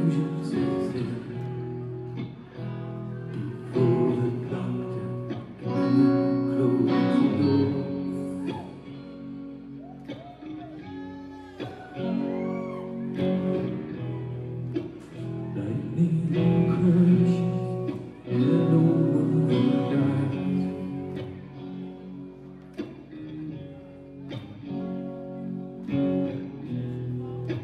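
Rock band playing live: guitars, drums and a lead singer, recorded from among the audience.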